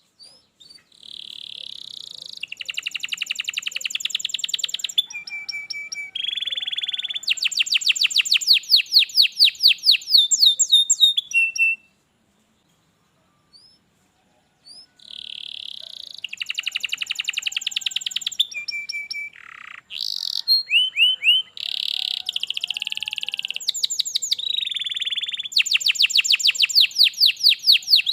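Domestic canary singing: two long song phrases of fast trills and repeated chirping notes, with a pause of about three seconds between them.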